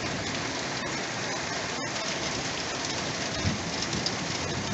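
Steady rain in a windy thunderstorm, with a brief low rumble about three and a half seconds in.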